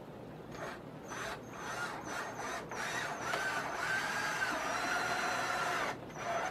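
Cordless drill/driver driving Torx screws into wooden rack boards: a few short bursts of the motor, then one longer run of about three seconds that stops near the end.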